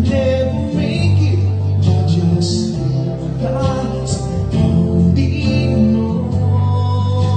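Music with a singing voice and guitar, playing steadily.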